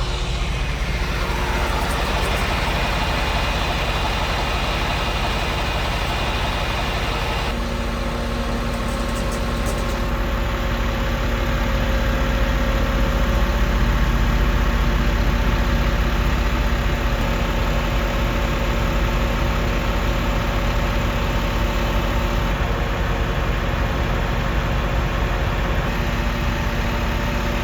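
Engine running steadily at idle. A falling whine sounds in the first couple of seconds, and about eight seconds in a steady low hum sets in and holds.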